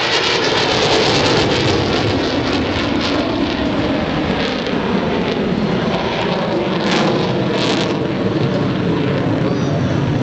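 Jet fighter flying overhead: a loud, steady rush of jet engine noise with a crackling edge.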